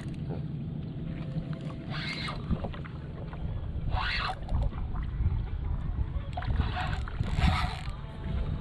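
Wind and water noise around a small skiff, a steady low rumble with three short hissing bursts about two, four and seven seconds in.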